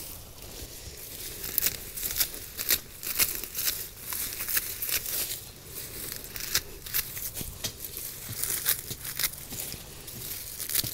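Hand pruners snipping through the thick leaves of an iris clump: a quick, irregular run of crisp cuts, two or three a second, mixed with the rustle and tearing of the leaves as they are cut back.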